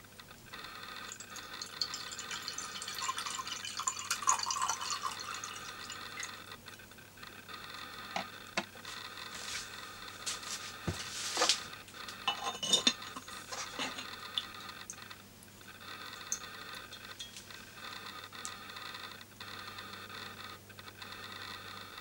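Water poured from a glass pitcher splashes into a Yixing clay teapot over the first few seconds. About ten to thirteen seconds in come several sharp clinks of the clay lid and vessels being set down, some briefly ringing. In the last several seconds a thin steady stream pours from the teapot's spout into the glass pitcher.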